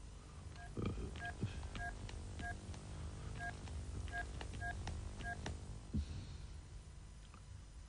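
Cordless telephone handset being dialled: a string of short keypad tone beeps, about seven key presses over some four seconds.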